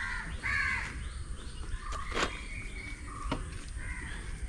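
Harsh bird calls, several short ones with the two loudest at the start, and two sharp knocks about two and three seconds in, as the wooden canoe is handled.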